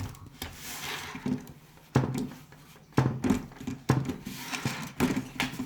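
Toy sand molds and tools knocking and scraping against a bowl and cookie sheet while kinetic sand is worked: a handful of sharp knocks about a second apart, with soft shuffling between them.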